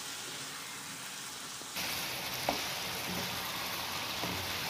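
Chicken pieces in a thick masala sizzling in a non-stick pan while being stirred with a wooden spatula, dry-cooked in their own juices until the oil has separated. The sizzle gets louder about two seconds in.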